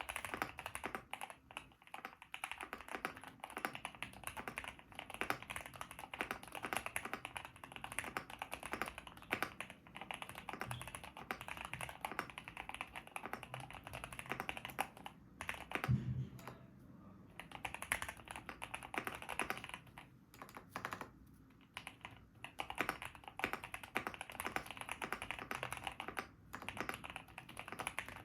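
Continuous typing on a GMK67 mechanical keyboard with Gateron G Pro 3.0 Black linear switches and GMK-profile keycaps, a rapid run of key clacks with a few short pauses. One deeper thump stands out about sixteen seconds in. The board has a tape-modded PCB and foam inside, yet its owner still finds it hollow-sounding.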